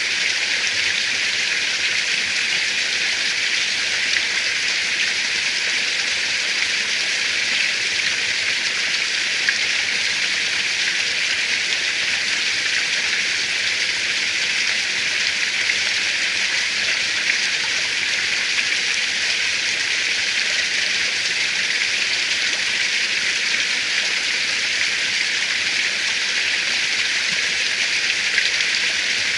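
Forest ambience: a steady, even, high-pitched hiss with occasional faint ticks.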